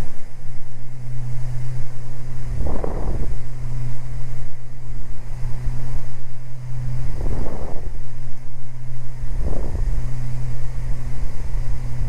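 Steady cabin drone of the Beechcraft Baron G58's twin piston engines and propellers in flight, with three short rushes of noise over it.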